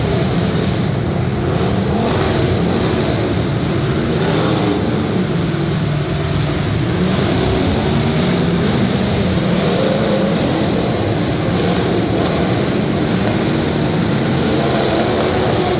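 Several demolition derby cars' engines running and revving at once, a loud, continuous mix of unmuffled engine noise that rises and falls in pitch.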